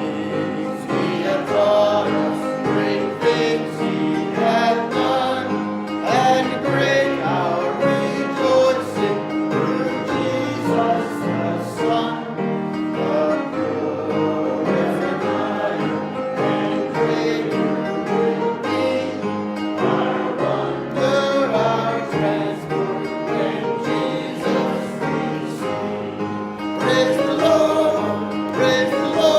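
Choir singing gospel music with instrumental accompaniment.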